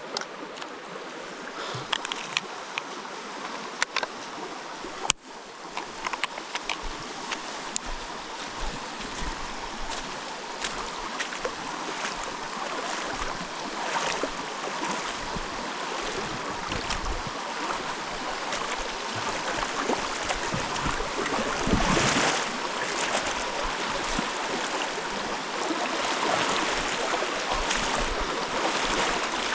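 River water rushing, growing louder throughout, with scattered sharp clicks and knocks and a louder swell about two-thirds of the way through.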